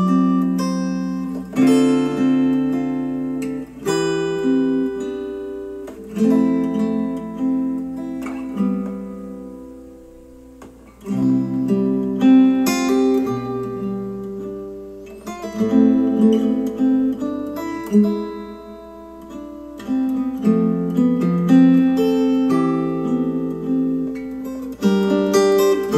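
Acoustic guitar music, plucked and strummed chords that ring and fade, played back through hi-fi bookshelf speakers.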